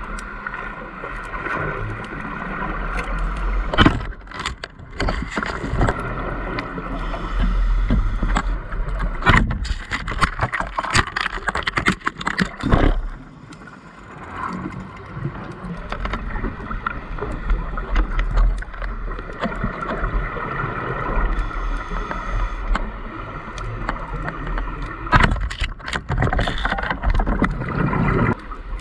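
Underwater sound of a scuba dive: a steady hum, broken by loud crackling bursts of the diver's regulator breathing and exhaled bubbles, about 4 s in, for a few seconds around 10–13 s, and again near the end.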